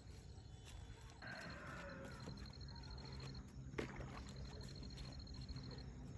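Footsteps rustling through cabbage leaves, with a rapid high-pitched pulsing trill coming in short spells and one sharp click about four seconds in.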